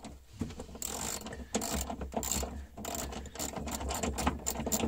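Socket ratchet wrench clicking in quick runs of strokes as it tightens the top nut of a rear coilover shock absorber.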